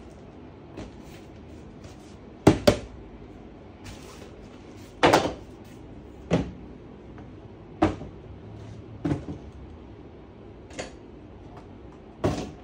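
Helinox Table One Hard Top folding camping table being set up and loaded: about eight separate sharp knocks and clacks, a second or two apart. The loudest is a quick double knock about two and a half seconds in, and near the end comes a knock as a hard case is set down on the tabletop.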